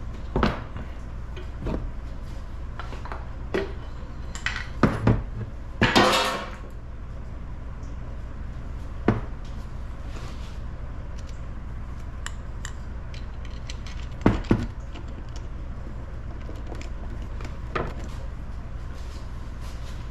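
Metal tools and engine parts clinking and knocking during engine teardown: scattered sharp clanks, with a longer, noisier burst about six seconds in, over a steady low hum.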